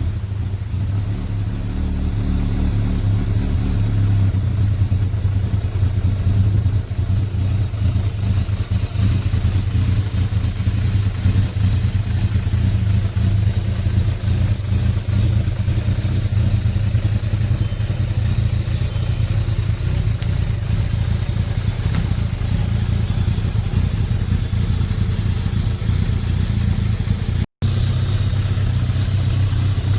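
Kawasaki ZZR1200's inline-four engine running steadily, warming up on fresh oil to circulate it through the engine after an oil and filter change. The sound drops out for an instant near the end.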